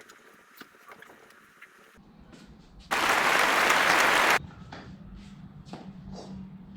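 A loud burst of even hissing noise, about a second and a half long, that starts and stops abruptly. Afterwards there are a few faint clicks over a steady low hum.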